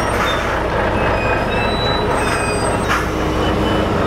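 Chicken transport lorry's engine running as it rolls slowly, a steady low rumble with several short high squeaks over it.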